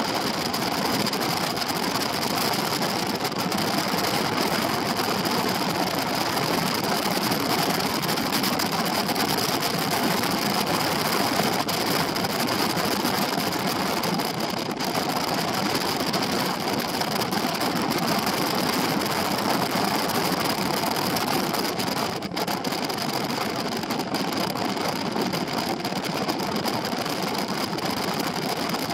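Benelli TRK 702 X parallel-twin motorcycle riding at a steady cruising speed: the engine runs under a steady rush of wind noise on the onboard microphone, with no revving or gear changes standing out.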